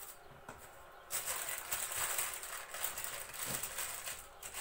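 Rustling and crinkling of a sheet of paper as almond paste is rolled out on it with a rolling pin, starting about a second in and lasting about three seconds.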